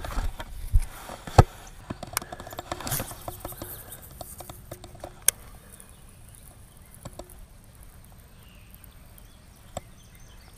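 Handling noise: scattered sharp clicks and knocks, the loudest about a second and a half in, thinning out after about five seconds into a faint background with one more click near the end.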